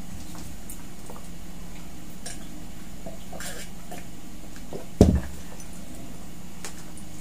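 Faint clicks and rustles of hands handling food and wrappers at a dining table over a steady low hum, then one heavy thud about five seconds in as a glass mug is set down on the table.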